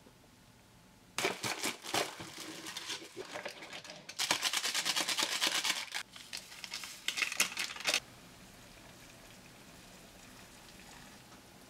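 Cup-noodle packaging crinkling in several bursts as the paper-foil lid is peeled back and the plastic soup sachet is torn open and shaken out. About eight seconds in this gives way to the faint steady sound of water pouring into the cup.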